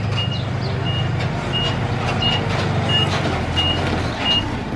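Dump truck reversing: its reversing alarm gives a short, high beep about three times every two seconds, over the steady low running of its diesel engine.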